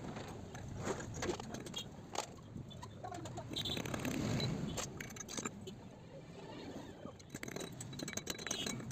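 Scattered light metallic clicks and clinks of a new 6203 ball bearing and hand tools being handled as the bearing is greased and fitted into a motorcycle's sprocket hub.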